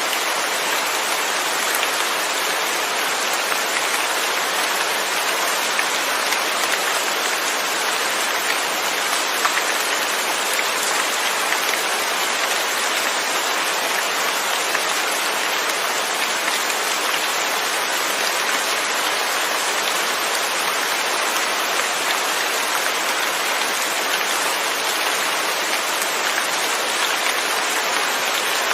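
Steady rain falling on a surface, an even hiss with no thunder.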